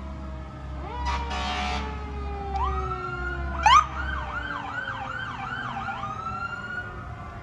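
Several emergency-vehicle sirens from a slow-moving procession of a police SUV, an ambulance and a fire truck, sounding at once as slow rising and falling wails. A harsh blast comes about a second in, and a little later one siren jumps up sharply, its loudest moment, into a fast yelp of two or three rises and falls a second that runs for a couple of seconds.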